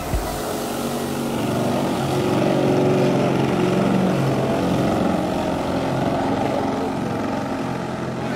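Large radio-controlled seaplane's 120cc gasoline engine and propeller running as the model skims low over the water and touches down on its floats, loudest about three seconds in as it passes closest.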